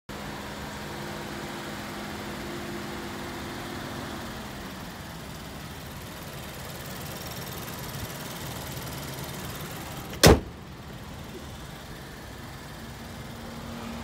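Steady low vehicle hum with a held drone that fades after about four seconds, and one sharp, loud knock about ten seconds in.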